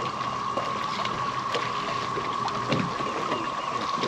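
Water lapping and slapping against a fishing boat's hull, over a steady high-pitched drone.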